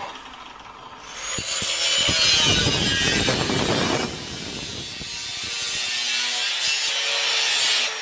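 A 4-inch angle grinder cutting through a double-walled stainless steel Yeti bottle: a loud grinding hiss of the disc on steel starts about a second in, is heaviest for the next few seconds, carries on a little lighter and stops at the end.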